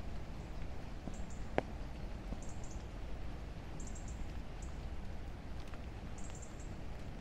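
Steady rain ambience with short, very high squeaky chirps from a small bird, repeating every second or so, and a single sharp tap about one and a half seconds in.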